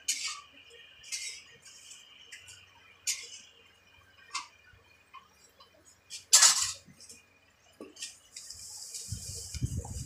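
Short, scattered scrapes and clicks of the plastic casing of a top-loading washing machine being handled during a repair, with a louder scrape about six and a half seconds in. Near the end a steady hiss and a low rumbling begin.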